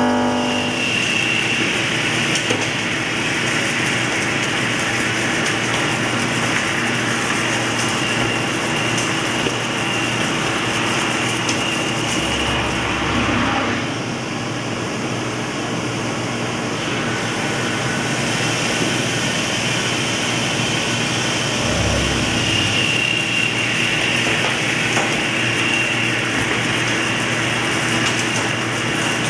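Quickmill Annihilator CNC machining center cutting low-carbon steel plate: a 2-inch face mill, then a 2-inch indexable insert drill boring under flood coolant. The cutting makes a steady hissing noise with a high whine that drops out midway and returns near the end, and a few low thuds come in the middle.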